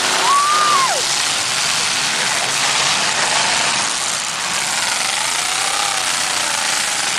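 Engines of several demolition derby cars running and revving together, a loud, dense, unbroken noise. A brief pitched tone slides up and then drops sharply in the first second.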